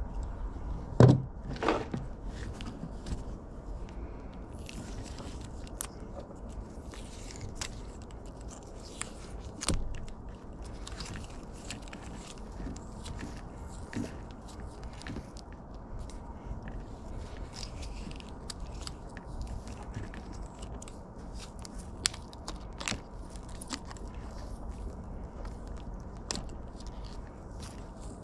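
Black electrical tape being peeled and unwound from an ATV wiring harness: a run of small crackles and rustles as the tape pulls off and the wires are handled, with a few louder knocks about a second in and again near ten seconds.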